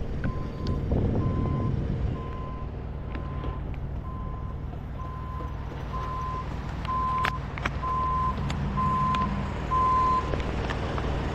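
Backup alarm of a reversing construction vehicle: a single-pitch beep repeating about one and a half times a second, getting louder as the machine comes closer and stopping near the end, over a steady low engine hum.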